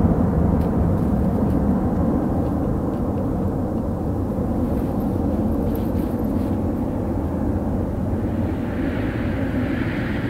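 The four jet engines of a Boeing 747-400 freighter at takeoff power as it climbs away: a deep, continuous rumble that slowly fades. A higher hiss grows in near the end.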